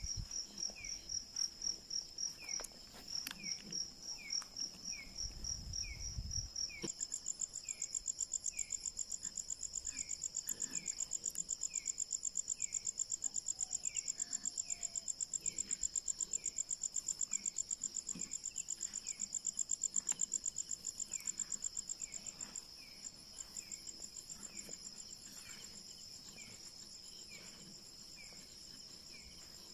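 Night insects, crickets among them, chirping: one calls in fast, even pulses, a second joins with a rapid high trill about seven seconds in, and a short falling chirp repeats about once or twice a second beneath them. The chorus grows quieter over the last several seconds.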